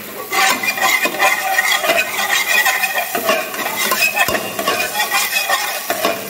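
Metal ladle stirring and scraping around a metal stockpot in quick repeated strokes while chopped ginger, garlic and green chillies sizzle in hot oil.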